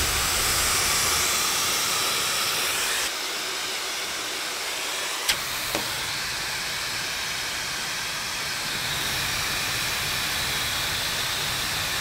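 Laifen Swift high-speed hair dryer, with a 110,000 RPM brushless motor, running and blowing hard: a steady rush of air with no clear motor whine, mostly just the sound of the air. The rush drops to a quieter level about three seconds in, and two faint clicks come about halfway through.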